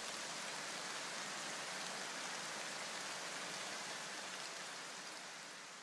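A steady rain-like hiss that fades smoothly away over the last couple of seconds: the noisy tail of an electronic background music track fading out.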